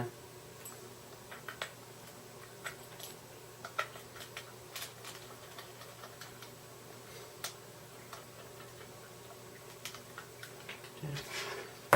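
Scattered light clicks and taps of a monitor cable connector and the plastic KVM switch box being handled as the cable is plugged in, coming at irregular intervals.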